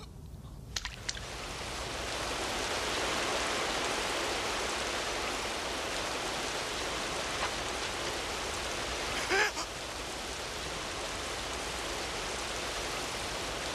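A steady, rain-like rushing hiss that fades in over the first two seconds, with one brief higher sound about nine and a half seconds in.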